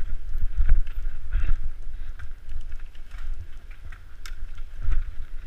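Wind rumbling on the microphone, with rattling and clicking from a mountain bike riding over a rough dirt trail.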